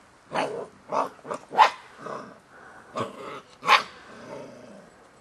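Belgian Shepherd puppies growling and barking in play, in short sharp bursts, about seven in the first four seconds, then quieter near the end.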